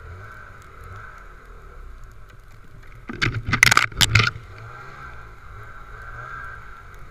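Snowmobile engine running with a steady drone on a trail ride, picked up by the sled-mounted camera. About three seconds in, a loud clatter of sharp knocks and scrapes lasting about a second, as the sled lurches through overhanging snowy branches.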